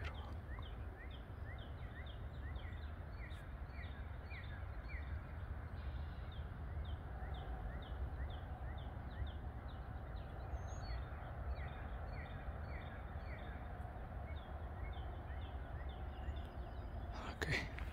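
An outdoor chorus of many short, high chirping calls, repeating about twice a second at two pitches, over a steady low rumble. A brief rustling burst comes near the end.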